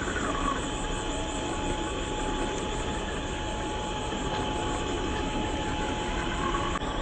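Stock 550 brushed motor and geared drivetrain of an HG P408 RC crawler running, a steady whine over a continuous noisy rumble; the whine stops abruptly near the end.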